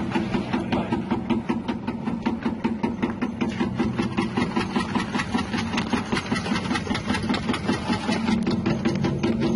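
Electric chip-slicing machine's 180-watt motor running with a steady hum, its rotating wavy blade cutting crinkle-cut slices with fast, evenly spaced ticks.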